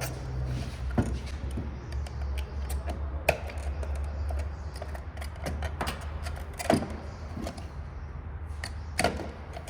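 Scattered clicks and knocks of tools or parts being handled, the loudest about a second in, at about three seconds, near seven seconds and at nine seconds, over a steady low hum.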